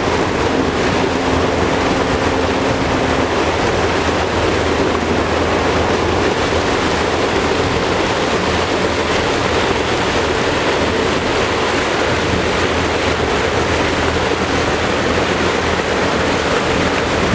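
Boat engine running steadily under way, with water rushing past the hull and wind on the microphone.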